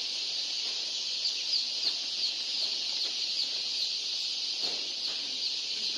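A crowd of chicks cheeping together in a dense, continuous high-pitched chorus, with single sharper peeps standing out now and then.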